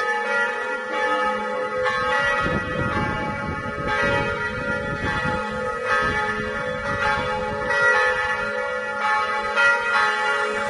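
Church bells ringing, several bells sounding together and struck again about once a second, their tones overlapping and hanging on. A low rumble runs under them for a few seconds near the start.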